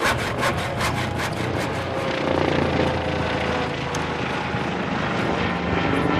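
Helicopter flying overhead, a steady drone of engine and rotor. The last hand-saw strokes on wood die away in the first second or so.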